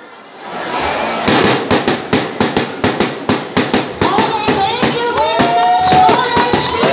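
A fast, even rhythm of sharp claps, about three a second, joined from about four seconds in by children's voices calling out in drawn-out, gliding tones.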